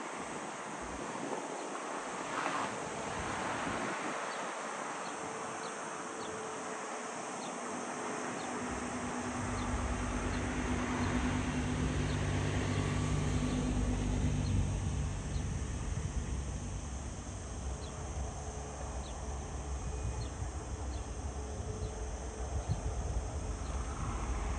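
Jet airliner engines on the runway: a low rumble with a steady hum comes in about ten seconds in, is loudest a few seconds later, then eases slightly. Over it lie a faint wind hiss and small high insect ticks about once a second.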